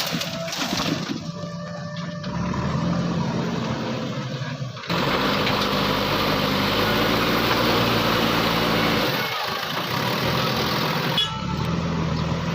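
Heavy diesel engine running steadily. About five seconds in, a loud rushing noise suddenly joins it for about six seconds, then stops, leaving the engine alone.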